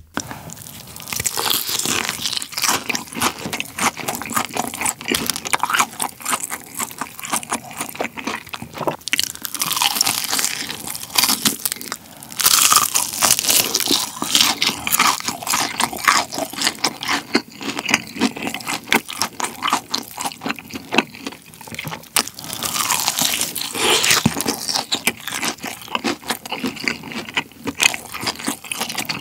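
Close-miked crunching and chewing of BBQ Golden Olive fried chicken: the crisp fried crust crackles with each bite, in a dense run of crunches with louder clusters as fresh bites are taken.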